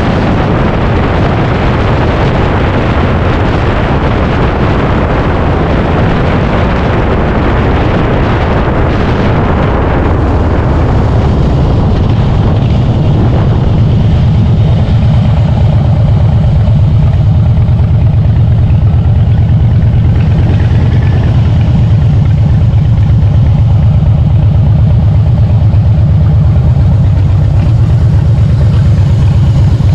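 Harley-Davidson Softail's V-twin engine running, with heavy wind rush on the microphone for the first ten seconds or so. The wind dies away and the engine settles to a steady, even low idle.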